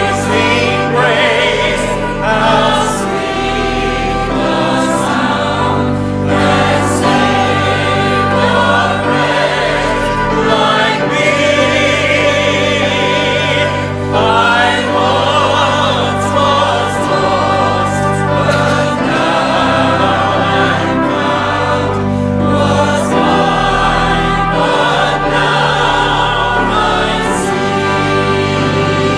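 A church congregation singing a hymn together in long held notes.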